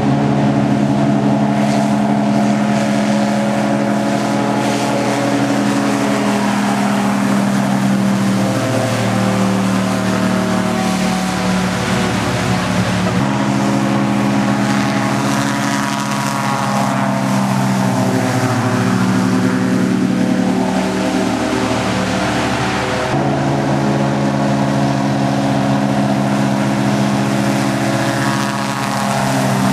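Airboat's engine and caged propeller running at speed across water, the pitch shifting up and down with the throttle. The sound changes abruptly twice, at about 13 and 23 seconds in.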